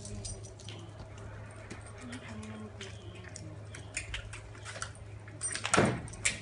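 Light jingling and clicking of dog collars and leash clips as two puppies are petted and shift about, over a steady low hum. A louder, brief noise comes near the end.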